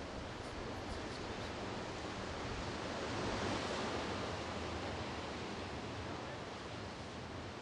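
Steady rush of ocean surf, swelling briefly about three seconds in.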